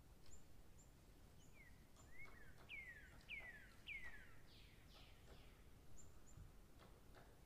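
Faint birdsong: a run of about five falling whistles, about two a second, in the middle, with short high chirps scattered around them over a low background hiss.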